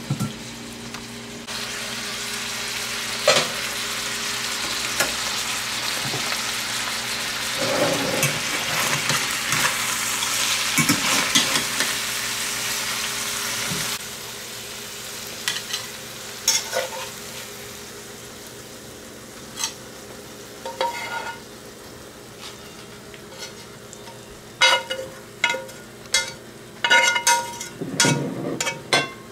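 Fish and greens sizzling in a lidded cast iron skillet, a steady frying hiss with a little moisture from hard cider in the pan. About halfway through it cuts off, and a metal spoon clinks and scrapes against the cast iron pan as the food is served onto a plate, with sharp knocks clustered near the end.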